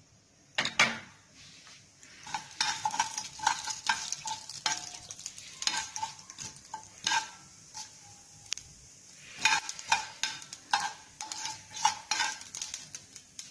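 Mustard seeds crackling and popping in hot oil in a stainless steel frying pan, with a spoon stirring and scraping against the pan. The sharp pops come irregularly in clusters, easing off for a moment past the middle.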